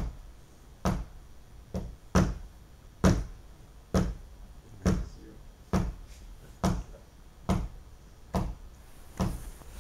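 A man clapping his hands in a steady beat, about one clap a second, keeping time for a rhythm exercise.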